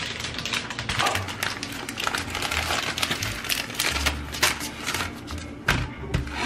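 Microwave popcorn packaging being opened and handled: a plastic wrapper crinkling and a paper bag and cardboard box rustling, with many quick clicks and taps.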